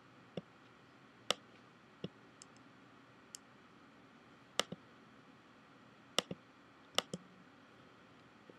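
Computer mouse clicking: about ten short, sharp clicks at irregular intervals, some in quick pairs, over a faint steady hiss.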